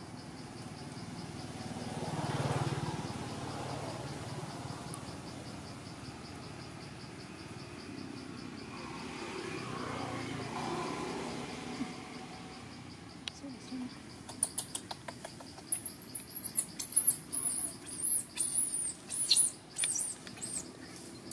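Baby macaque squealing in a rapid run of sharp, high-pitched distress cries while its mother handles it roughly. The cries begin about two-thirds of the way in, over a steady pulsing chirr of insects.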